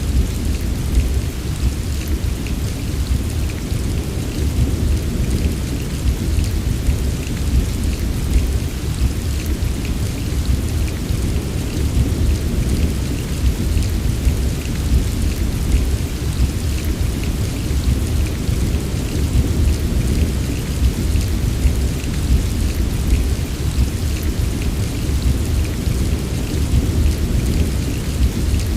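Steady heavy rain falling, with fine patter of drops and a continuous deep rumble underneath; no single loud crack stands out.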